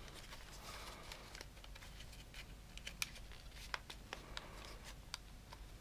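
Faint, scattered clicks and light scratching of a Panasonic HC-V180 camcorder's plastic housing parts being handled and slid into place.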